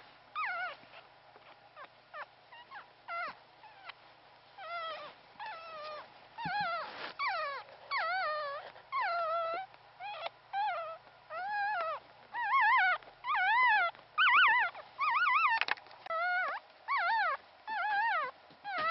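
A four-day-old Pomeranian puppy crying in a run of short, high-pitched whimpers that waver in pitch. They are faint and sparse at first, then louder and more frequent from about five seconds in, roughly one or two cries a second.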